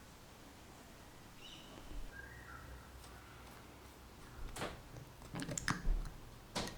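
Faint bird chirps, then a quick series of light clicks and knocks from about four and a half seconds in, as small containers and tools are handled while pigmented shellac is mixed.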